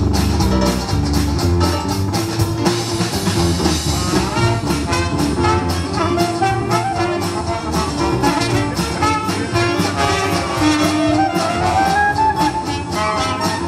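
Dixieland jazz band playing live: trumpet, clarinet and trombone over banjo, double bass and drums, with a steady beat. Near the end a melody line climbs upward.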